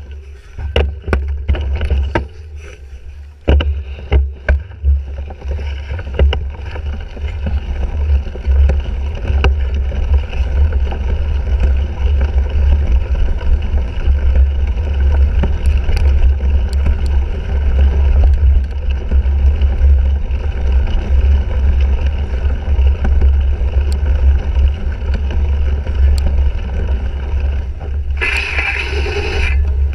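Wind rumble on a bike-mounted GoPro action camera while riding a cyclocross race, with the bike's rattles and knocks over rough ground in the first few seconds. A brief louder burst of noise comes near the end.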